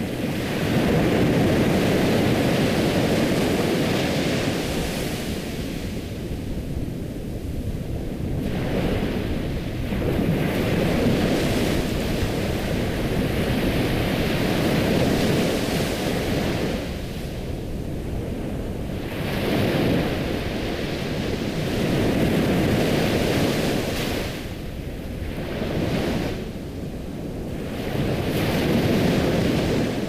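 Ocean waves breaking and washing back, the surf swelling and falling away every few seconds.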